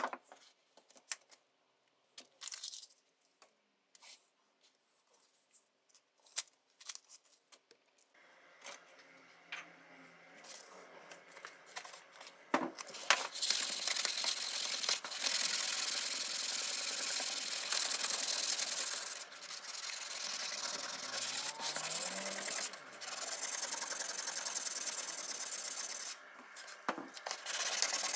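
A blue abrasive pad scrubbing a paste-coated metal kitchen-scale plate: a steady scratchy rubbing that starts about halfway through, with a few short breaks between strokes. Before it, scattered light clicks and taps.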